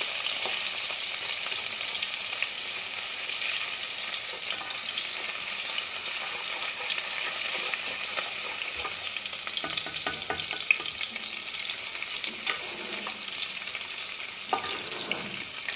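Chopped onions sizzling as they fry in hot oil in a pan, a steady high hiss, with a few light clicks near the end.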